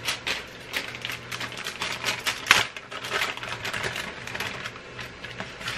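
Rapid, irregular clicks and clatters of kitchen utensils and containers being handled, with one sharper clack about two and a half seconds in.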